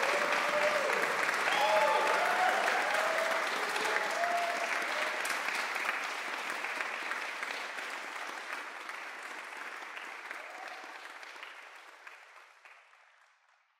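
Audience applauding, with a few voices calling out in the first few seconds; the applause fades away near the end.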